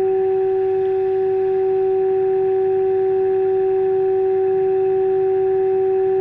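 Steady single test tone from a signal generator's modulated signal, reproduced through the loudspeaker of a 1950s Unic Royal valve radio tuned onto the generator's signal during alignment of its oscillator trimmer, with faint hiss beneath.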